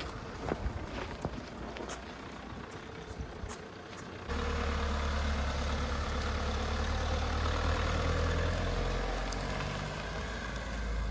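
A vehicle engine running steadily, with a low rumble that cuts in suddenly about four seconds in. Before it there are faint scattered clicks and knocks.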